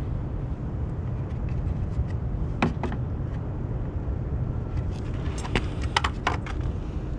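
A steady low rumble with a few sharp clicks and taps. Two come about two and a half seconds in, and a quick cluster follows about five and a half seconds in.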